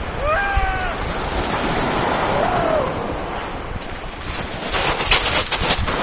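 Small waves of the calm sea washing onto a pebble beach, with wind buffeting the microphone. Two short cries that rise and fall in pitch come near the start and about two seconds in. A cluster of sharp clatters and splashes comes near the end.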